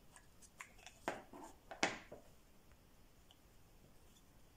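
Light clicks and knocks of plastic-backed diamond sharpening stones being handled and tapped against each other, a short cluster in the first two seconds with two louder knocks, then quiet.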